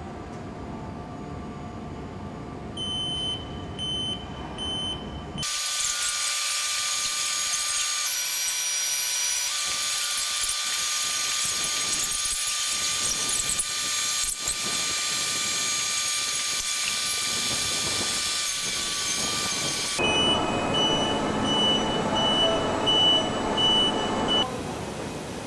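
Industrial machinery running with a loud, steady whirring hiss and whine. Before and after it comes a lower rumble with series of short electronic warning beeps, three at first and about six near the end.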